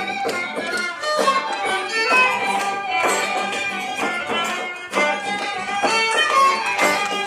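Live traditional Irish jig played by fiddle, a small end-blown pipe, acoustic guitar and a hand frame drum, with the fiddle carrying a quick, steady melody.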